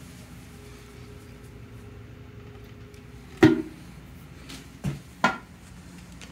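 Hard knocks on the porcelain of a 1996 Universal Rundle Atlas toilet, with a clinking ring like struck china. One loud knock comes about halfway through and rings briefly. Two lighter knocks follow about a second and a half later, a third of a second apart.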